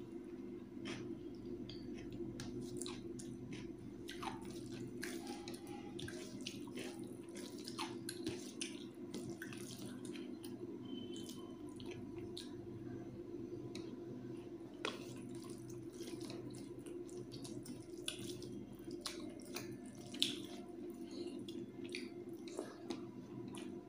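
Wet squishing, with scattered small clicks and smacks, as rice and thin chicken gravy are mixed by hand on a steel plate and eaten, over a steady low hum.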